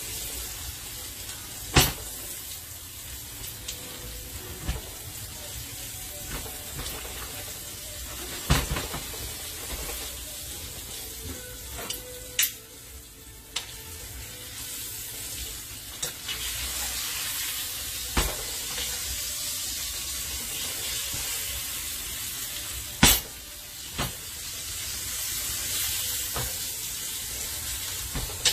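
New York strip steaks searing in olive oil in a hot carbon steel pan: a steady high sizzle, broken by a sharp click every few seconds.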